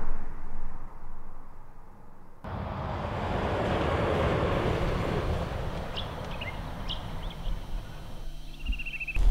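Semi-trailer truck crossing a road bridge: a low rumble under the bridge deck dies away, then the truck's tyre and engine noise swells and fades as it passes over. A few short bird chirps and a brief trill near the end.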